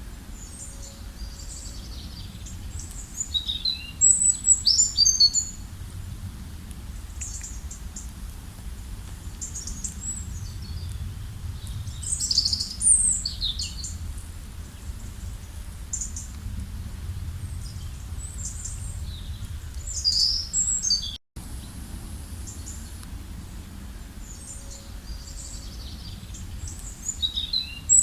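Songbirds singing in short, high-pitched bursts of chirps and whistles about every eight seconds, over a steady low background rumble. The sound drops out briefly about two-thirds of the way through.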